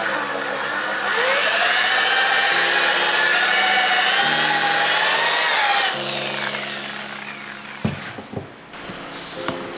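Corded rotary polisher with a foam pad buffing a fiberglass fender plug: its motor whine rises as it spins up about a second in, runs steady, then winds down about six seconds in. A few knocks follow as the polisher is set down, with soft background music underneath.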